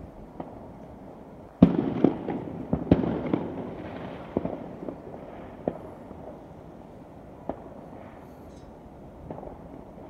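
Fireworks going off: a loud bang a couple of seconds in opens a few seconds of rapid bangs and crackling, followed by scattered single bangs.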